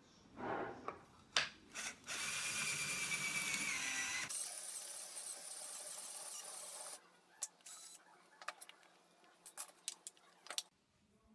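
Cordless drill boring through a wooden disc with a wood-boring bit. It runs for about five seconds, its whine sagging slightly as the bit bites, then stops. A few knocks come before it, and light taps and handling of the wood follow.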